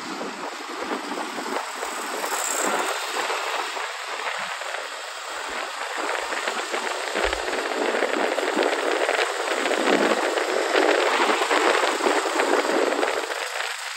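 Rushing wind and road noise while riding alongside a motorcycle at speed, swelling louder after about eight seconds.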